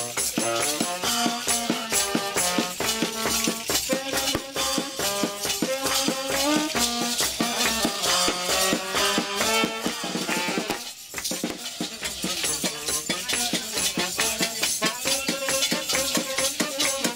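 Small band playing a tune in a train carriage, with a tambourine shaken and struck in a steady rhythm under the melody; the music breaks off briefly about eleven seconds in.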